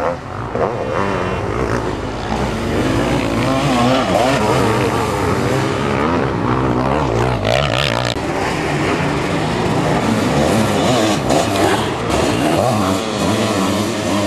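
Racing sidecar motocross outfits' engines revving hard, their pitch rising and falling as they accelerate and brake through the corners, with more than one outfit running at a time.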